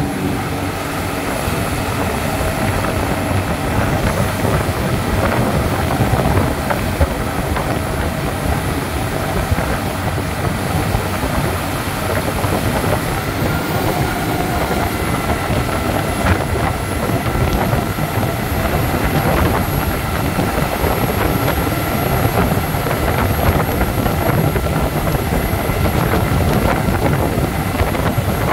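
Motorboat running steadily at speed across open water: engine drone under the rush of the churning wake, with wind buffeting the microphone.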